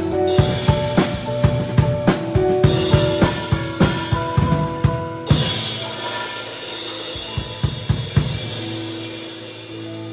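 Drum kit playing a steady beat of kick, snare and cymbals together with sustained keyboard and bass chords in a worship song. About halfway through a crash cymbal rings out, after which the drum hits thin out and the chord fades.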